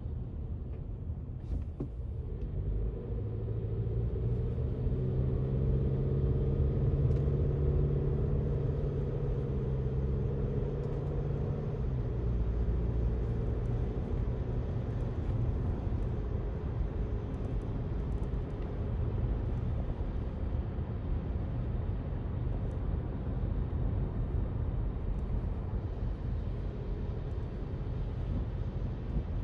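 Low road-traffic rumble from vehicles passing, with one engine's hum growing louder from about three seconds in and fading out around twelve seconds.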